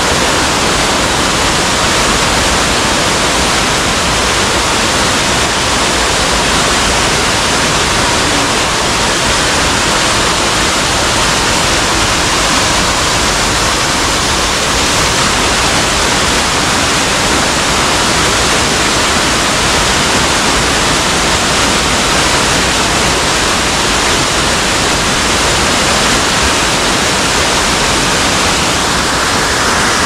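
Kaiko Falls, a tall waterfall plunging down a gorge wall, making a steady, loud rush of falling water that does not change.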